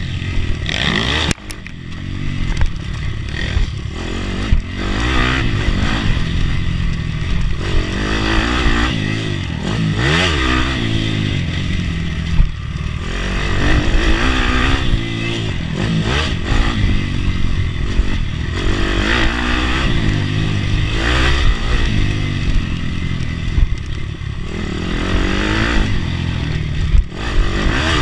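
Bucci pit bike's four-stroke single-cylinder engine revving up and falling back again and again as it is ridden round a dirt track, heard from on board the bike.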